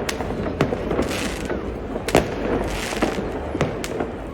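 New Year's Eve fireworks going off: about five sharp bangs at irregular intervals, the loudest about two seconds in, with two stretches of hissing crackle between them.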